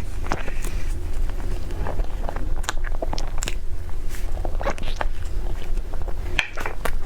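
A person biting and chewing food close to the microphone, with irregular sharp clicks and smacks from the mouth.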